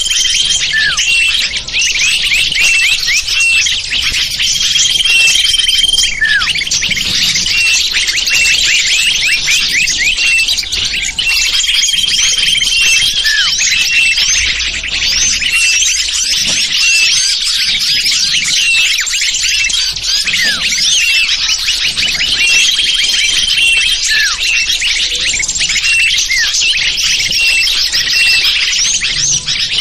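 Lure recording of small wild birds: a dense, unbroken chorus of many small birds' chirps and twitters, with a held, level whistle coming back every few seconds.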